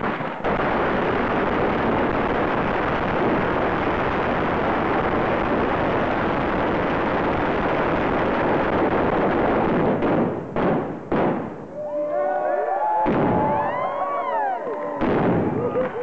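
A dense, unbroken crackle of many firecrackers and bangers going off together for about ten seconds. It is followed by a few separate loud bangs, people shouting, and more bangs near the end.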